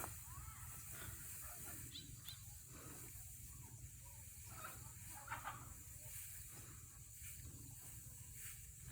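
Faint outdoor background: a steady hiss and low rumble with a few scattered faint short chirps or rustles.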